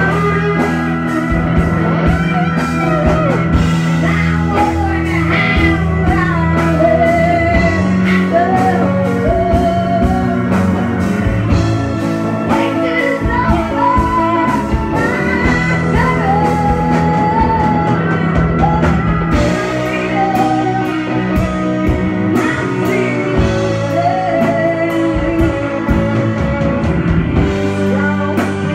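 Live rock band playing: an electric lead guitar line of bent, wavering notes over a steady beat on drum kit, bass and keyboard.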